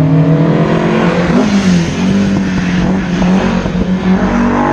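Rally car engine under hard load at high revs, heard from on board. Its pitch rises about a second and a half in, then settles and wavers as the revs change.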